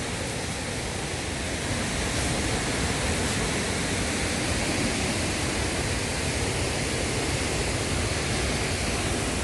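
Steady rush of Agate Falls, water pouring over rock close by.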